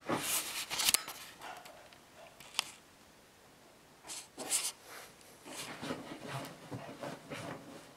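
Cavalier King Charles spaniel digging and scratching at a fabric blanket, its paws and claws rustling and scuffing the cloth in irregular bursts, with a brief lull in the middle.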